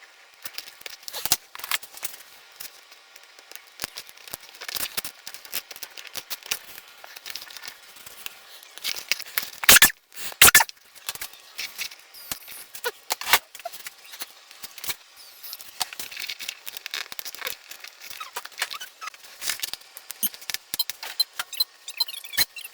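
Parts of an RC model airplane being handled and fitted together by hand: scattered small clicks, taps and rustles, with two louder knocks about ten seconds in.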